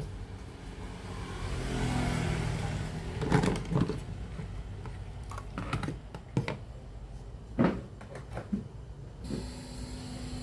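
Portable radio on test after repair, hissing with static between stations. The hiss swells about two seconds in, several sharp clicks and knocks follow, and a steady hum-like tone sets in near the end.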